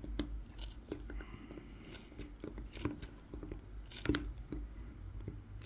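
Tip of a Mora 106 carving knife scoring short incisions into a wooden spoon for kolrosing: a string of small, irregular scratchy clicks as the blade cuts into the wood, the loudest about four seconds in.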